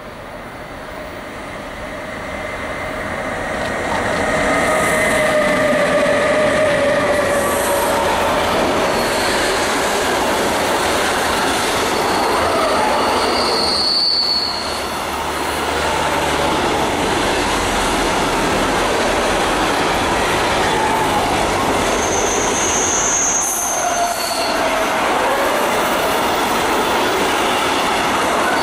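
Intermodal freight train, its wagons loaded with lorry trailers, approaching and passing close by. The rolling noise grows over the first four seconds and then holds steady, with wheel squeal in shifting tones. Short, sharp high squeals come about halfway through and again about three-quarters through.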